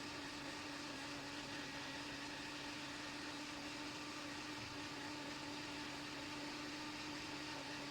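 Hot air rework station blowing steadily: an even rush of air with a constant low hum, heating solder on a circuit board.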